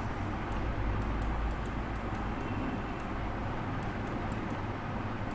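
Steady low rumble and hum of background noise, with faint scattered light ticks.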